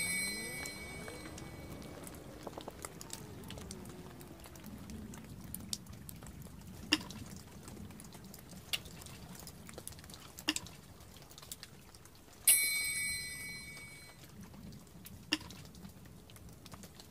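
Water dripping from melting icicles: a handful of single drops plinking at uneven intervals a second or two apart. A ringing, chime-like note sounds at the start and again about twelve seconds in.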